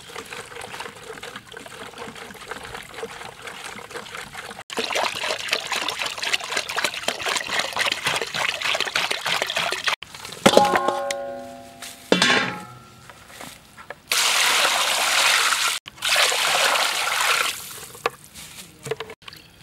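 Water poured from a plastic jerrycan and splashing into a bucket and a metal basin. Near the middle the metal basin rings briefly with a short rising tone as it fills. Later come two loud spells of pouring and splashing over raw chicken pieces being washed in the basin.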